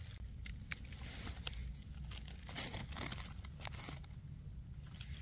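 Faint rustling and crackling of leaf litter, with a few short sharp snaps scattered through, as wild mushrooms are picked from the forest floor.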